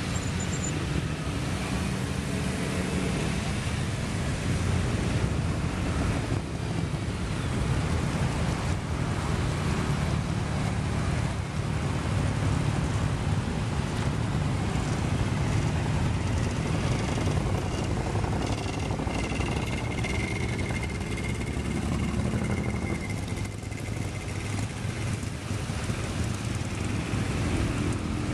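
A steady stream of motorcycles riding past, a mix of V-twin cruisers and sport bikes, their engines blending into one continuous, even run of engine noise.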